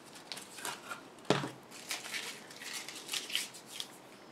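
Tape being peeled off a laser-cut MDF model while the wooden model is handled, a run of light rustles and small clicks with one sharper knock about a second in.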